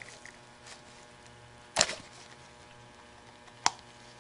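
Two short sharp clicks, a louder one about two seconds in and a lighter one near the end, as the parts of a cut-open Valvoline oil filter are handled in gloved hands.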